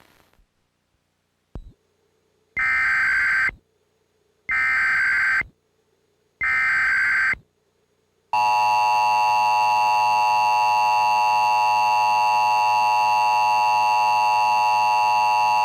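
Emergency Alert System Required Monthly Test tones. First come three one-second bursts of screechy digital data tones, the SAME header, about two seconds apart. After a short gap, the steady EAS two-tone attention signal (853 and 960 Hz together) sounds for about eight seconds.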